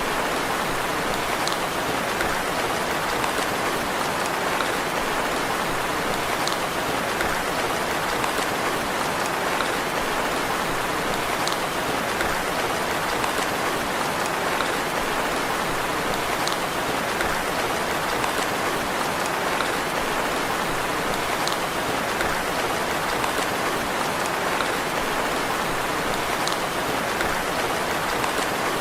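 Steady, even rain falling on a surface, with faint light ticks of drops recurring about every five seconds.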